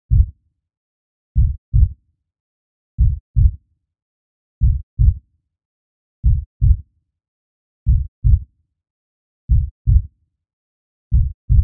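Heartbeat sound effect: slow, low double thumps, lub-dub, one pair about every 1.6 seconds, with silence between the beats.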